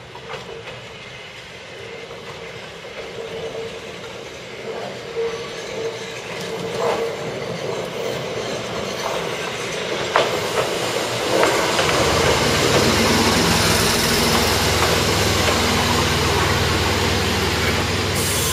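Hokuriku Railroad 7000-series electric train arriving, growing steadily louder as it approaches, with sharp clicks of its wheels over rail joints. A deeper running hum fills in about two-thirds of the way through as it draws alongside.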